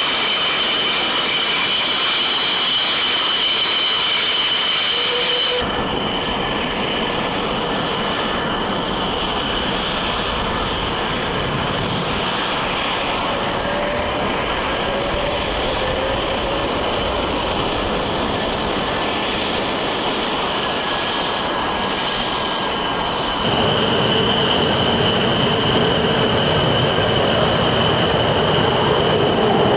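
Jet fighter engine noise: a loud, steady roar with a high whine. The sound changes abruptly about six seconds in and again near the end, as one recording gives way to another.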